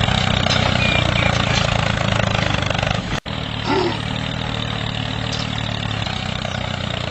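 An engine running steadily at idle, with a brief sudden dropout about three seconds in.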